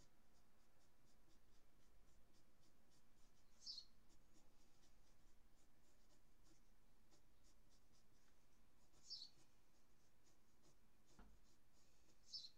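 Pencil sketching on paper: a run of quick, faint scratchy strokes, with three longer, louder strokes spread through.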